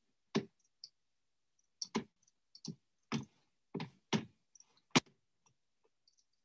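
Irregular clicks and taps at a computer, about a dozen, some in quick pairs, with the sharpest and loudest click about five seconds in.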